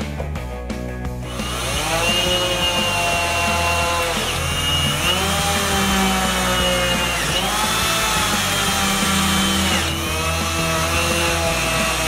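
Cordless drill-driver driving screws through a steel latch plate into wood, in about four runs of a few seconds each; each run starts with a rising whine as the motor spins up, then holds steady.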